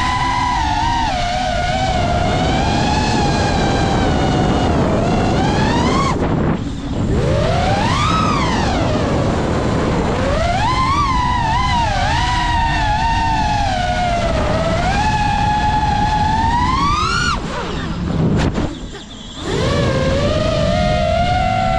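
FPV quadcopter's brushless motors whining, the pitch swooping up and down with the throttle over a rush of wind. The motor sound drops out briefly twice, about a third of the way in and again near the end, as the throttle is cut.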